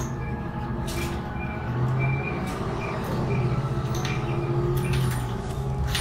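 City bus running under way, heard from inside: a steady engine drone that swells twice, with a few knocks and rattles from the ride.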